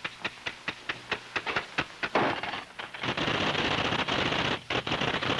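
Typewriter keys striking at about five a second, then from about three seconds in a fast, continuous clatter of typing, broken once briefly near the end.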